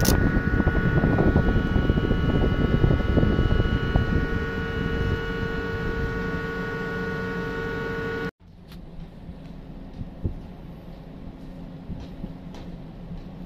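Steady machinery hum with several constant whining tones over a low rumble, cutting off suddenly about eight seconds in to a much quieter background with a few faint clicks.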